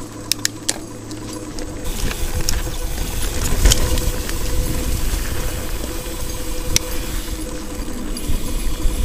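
Mountain bike riding over a dirt trail: the frame and parts rattle, with several sharp clicks and knocks. A low rumble builds from about two seconds in.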